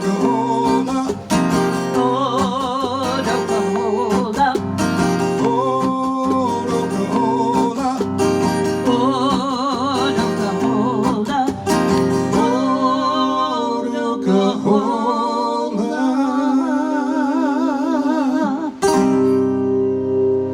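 Live country band playing the close of a song: strummed acoustic guitar under a wavering, held melody line. About a second before the end a final chord is struck and left ringing.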